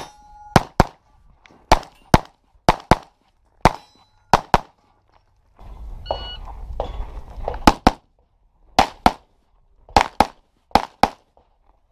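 Handgun shots fired in quick pairs, double taps about a fifth of a second apart, as a shooter engages targets on a USPSA stage. About six seconds in, a shot timer beeps, and a second and a half later more pairs of pistol shots follow.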